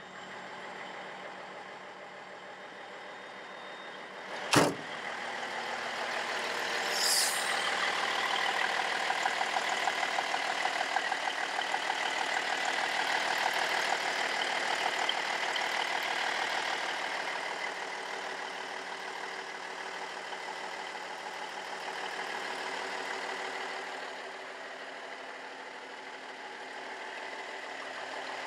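The M925A1's Cummins NHC250 855-cubic-inch six-cylinder diesel idling steadily, louder through the middle stretch. A sharp click comes about four and a half seconds in, and a short hiss follows about seven seconds in.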